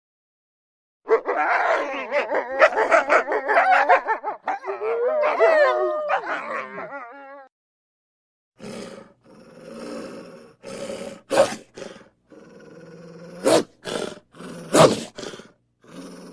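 Wolf growling and snarling, with a wavering pitch that slides up and down in its later part. After a short pause, a run of short, sharp snaps and barks with quieter growling between them.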